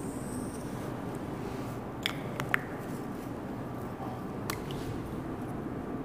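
A marker writing on a whiteboard: a faint scratchy squeak in the first second, then a few sharp light taps and clicks of the marker against the board, about two seconds in and again near the middle, over a steady low room hum.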